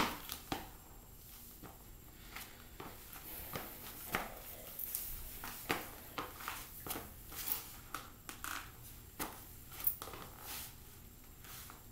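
Footsteps of leather ballet flats on a tile floor: soft, irregular taps and scuffs, about one or two a second, as the feet step and shift in place.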